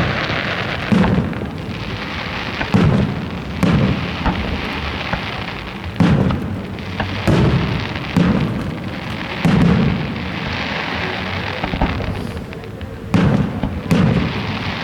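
Aerial fireworks shells bursting overhead: about a dozen deep booms at uneven spacing, each with a brief rumbling tail.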